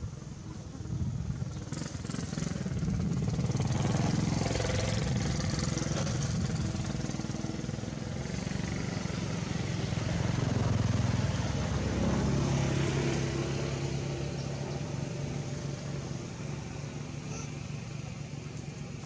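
A motor vehicle engine running close by, growing louder, staying loud through the middle and then fading away.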